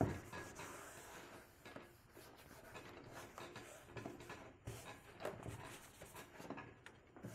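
Faint, irregular rubbing and swishing of a paper towel being wiped over a plastic headlight lens to clear off spray lube, with a short knock right at the start.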